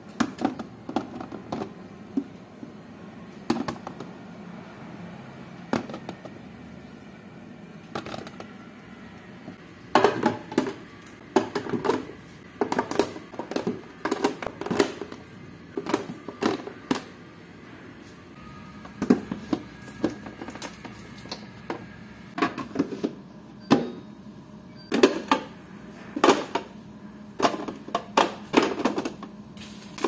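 Hard plastic food-storage containers clacking and knocking as they are set onto freezer shelves and slotted into a divided door bin: irregular clicks and thuds, coming thick and fast after the first third, over a faint steady hum.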